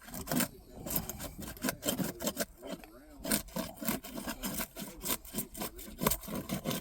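Repeated rough scraping strokes of a tool being worked under sealed asphalt roof shingles to break their seal and pry them loose.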